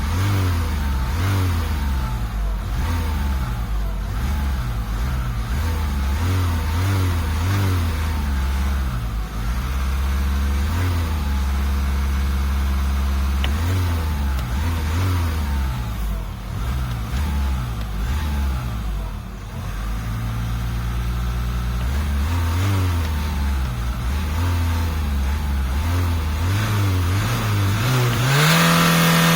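Car engine revved by pedal in short repeated throttle blips, its pitch rising and falling again and again, with a longer, higher rev near the end.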